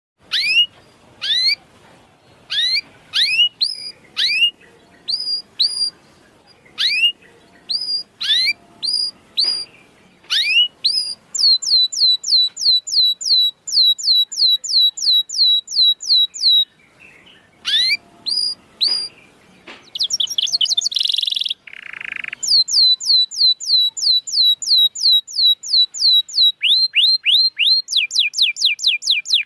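Canary singing loudly, the kind of song used as a lure to get a reluctant canary to sing: first separate upward-sweeping chirps, then fast trills of downward-sliding notes, about four to five a second. A couple of harsh, buzzy notes come about twenty seconds in.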